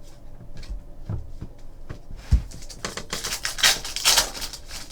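Trading cards and their packaging being handled on a table: light clicks, a single thump about two seconds in, then a burst of crinkling and rustling for about a second and a half near the end.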